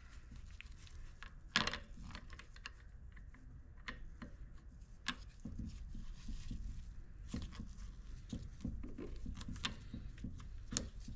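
Small clicks and taps of metal parts being handled and seated inside a Bosch VE diesel injection pump housing as the coupler and cam plate go in, with a sharper click about one and a half seconds in. A faint low hum sits underneath.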